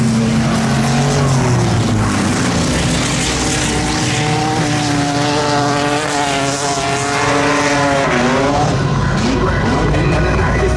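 Six-cylinder jalopy race cars running on a dirt oval track, engines under load. One engine's pitch climbs slowly for several seconds, then drops away sharply near the end.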